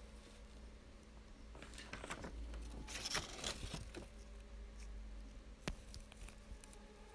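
Faint scratchy scraping and squishing of a spatula scooping thick liquid latex and flour paste from a plastic tub, with one sharp click later on.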